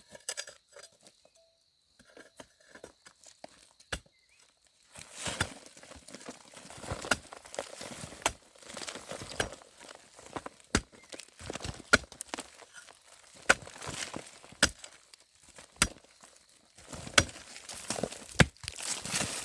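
Irregular crunching, rustling and sharp snapping of twigs and leaf litter, sparse at first and then dense from about five seconds in.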